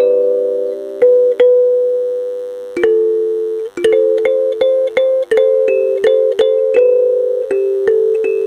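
Background music: a slow, sad music-box melody of single plucked notes, each ringing and fading, with a brief pause about two-thirds of the way through.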